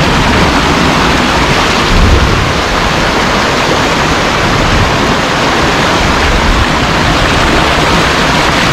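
A shallow rocky stream rushing and splashing over boulders in small cascades: a steady, loud water noise with a low rumble underneath.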